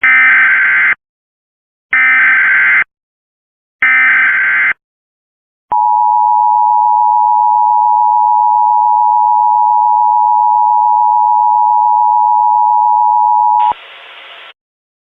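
Emergency Alert System alert opening: three one-second bursts of warbling digital header tones, a second apart, then the steady two-tone attention signal held for about eight seconds. A short, quieter buzz follows near the end.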